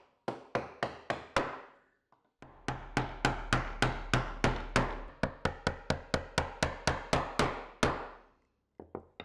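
Mallet striking a chisel, chopping out a bowtie mortise in a camphor laurel slab: five sharp knocks, a short pause, then a steady run of about twenty knocks at nearly four a second, each ringing briefly, that stops about eight seconds in.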